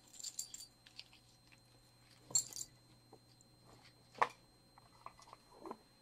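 Metal costume jewelry being handled: chains and pieces clinking and rattling now and then, with small clicks and knocks, the loudest rattle about two and a half seconds in and a sharp click about four seconds in.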